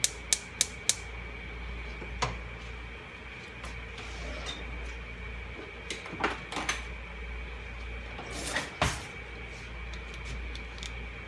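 A gas stove's spark igniter clicks four times in quick succession as a burner is lit under the pan. Scattered knocks and clatter follow, over a steady faint high tone and low hum.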